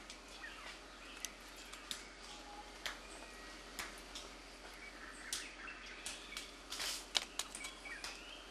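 Irregular sharp clicks and light knocks of stones and nut shells being handled at a chimpanzee's stone anvil, several coming close together near the end. Faint bird chirps over a steady forest hiss.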